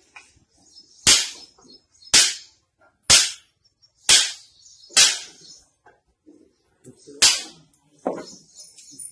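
Hands slapping bare feet: five sharp smacks about a second apart, a sixth after a short pause, then a softer one near the end.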